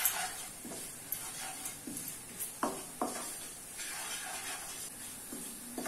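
Spatula stirring and scraping ground spices into fried onions in a kadhai, one short scrape every second or so, over a faint sizzle of oil.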